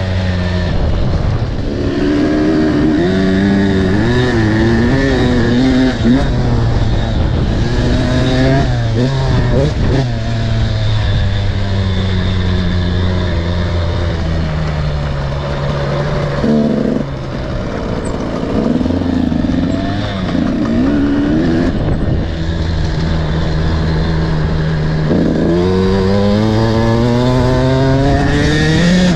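300 cc two-stroke enduro motorcycle being ridden hard, its engine revving up and dropping back again and again through throttle and gear changes, with a long climbing rev near the end. Wind rush on the bike-mounted microphone runs under it.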